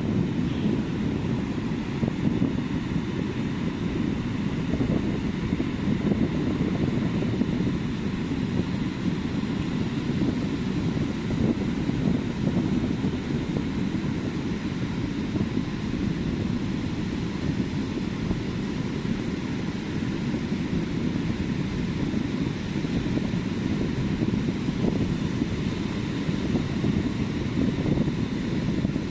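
Ocean surf on a beach: waves breaking and washing in as a steady low rush that swells and eases a little.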